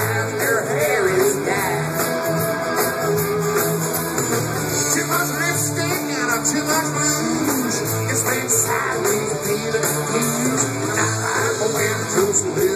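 A live country-rock band playing through a PA system, with guitars, heard from among the audience.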